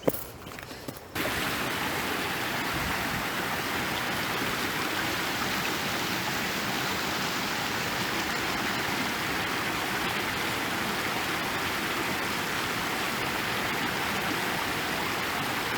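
Steady rush of a rocky mountain stream, cutting in suddenly about a second in, after a few quiet footstep clicks.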